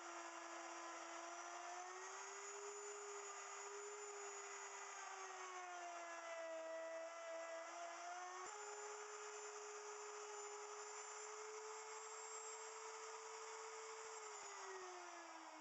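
Wood router on a router milling machine running and cutting into cedar, a steady whine whose pitch dips and recovers as the bit takes load, with a sharp click about halfway. Near the end the pitch falls steadily as the router winds down.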